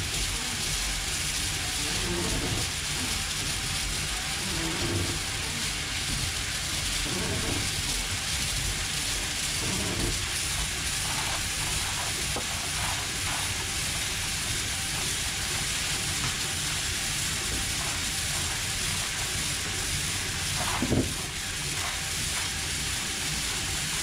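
Ice blown through a large ribbed hose into a boat's fish hold: a steady rushing hiss, with a single sharp knock near the end.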